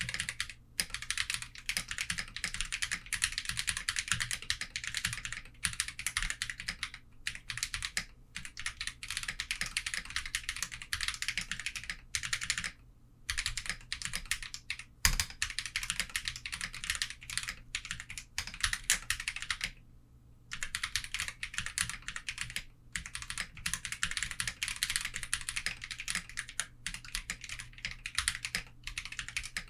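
Continuous fast typing on a Portico mechanical keyboard with Holy Panda tactile switches, a dense stream of key clacks broken by two short pauses, a little under halfway through and about two-thirds through.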